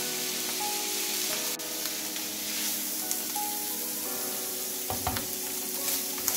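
Sliced meat sizzling steadily in a hot cast iron skillet while it is turned with tongs, giving a few light clicks against the pan.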